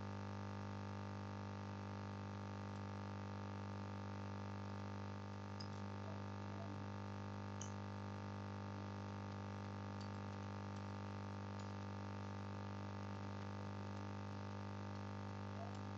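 Steady electrical mains hum with a stack of evenly spaced buzzing overtones, unchanging throughout, picked up in the recording's audio line.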